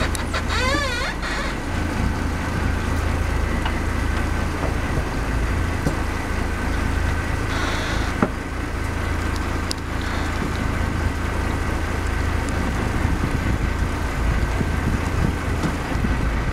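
Sportfishing boat's engine running steadily under an even haze of water and wind noise. A brief warbling, whistle-like tone comes in just under a second in.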